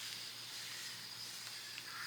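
Faint, steady high hiss of quiet rural outdoor ambience, with no distinct event.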